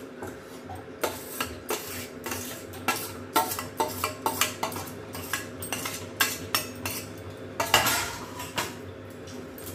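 Metal spoon scraping and tapping against a stainless steel plate, a run of irregular clinks and scrapes as grated radish is pushed off it, louder for a moment near the end.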